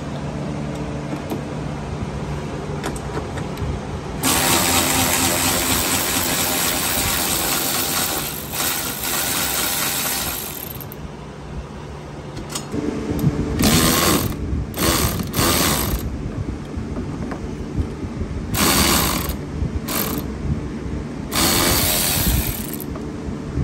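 Cordless electric ratchet running, backing out the bolts and nylon locking nuts that hold a golf cart's rear roof strut. One long run starts about four seconds in, then several shorter runs follow in the second half.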